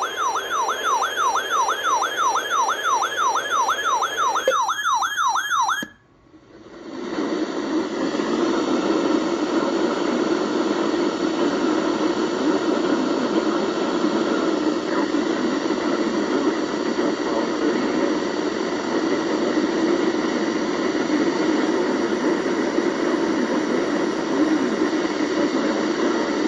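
A weather radio receiver's alert siren warbling rapidly up and down, about two to three sweeps a second, which signals that a warning has been received. It cuts off about six seconds in and gives way to a steady rushing noise.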